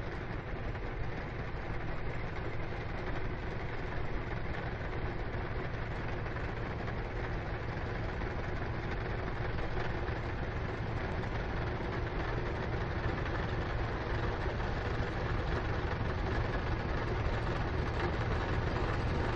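A heavy engine running steadily, with a low hum under a loud, even rushing noise.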